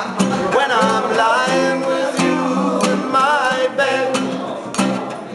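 Background music: a pop song with guitar.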